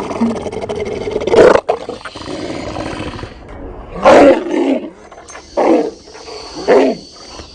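Large, fierce dogs growling and snarling loudly, then three deep single barks spaced a second or so apart in the second half.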